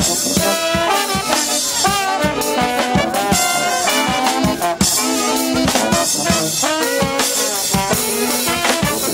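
Brass band playing live: trombones, sousaphone and saxophone over a drum kit keeping a steady beat.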